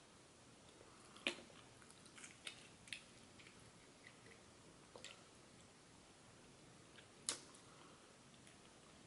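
Crab shell being pried and snapped apart by hand: a few sharp cracks and clicks, the loudest about a second in and again about seven seconds in, with faint chewing between them.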